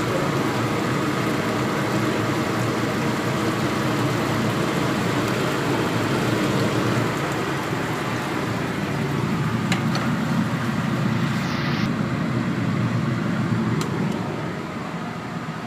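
Chicken pieces with garlic and ginger sizzling and frying steadily in hot sesame oil in a pan, before the rice wine is added.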